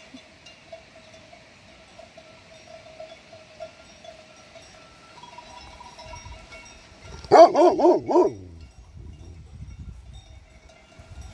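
A dog barks four times in quick succession about seven seconds in, over a faint steady ringing tone.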